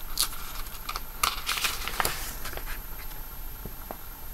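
Paper rustling and crackling as a comic book is handled and opened out to its inside pages, in a few short bursts.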